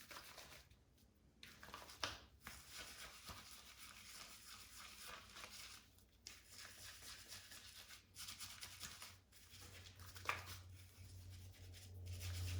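Shaving brush working soap lather on the face: faint, uneven bristle swishing with short pauses.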